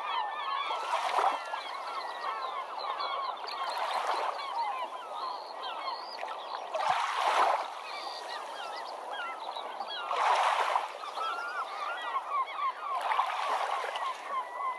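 A dense flock of birds calling over one another, many short overlapping calls at once. The din swells louder about every three seconds.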